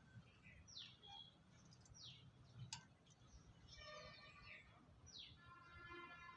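Faint lovebird chirps: short high notes that drop in pitch, roughly one a second, with two longer, buzzier calls with many overtones in the second half. A single sharp click near the middle.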